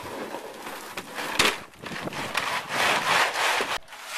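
Large fiberglass sheet being handled and shifted over the floor: irregular rubbing and scraping with one sharp knock about a second and a half in.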